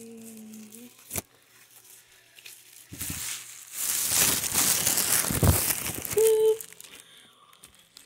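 Loud crinkling rustle close to the microphone, starting about three seconds in and lasting some three seconds. It follows a held pitched tone that stops just before a second in and a single sharp click just after it, with a short pitched sound near the end of the rustle.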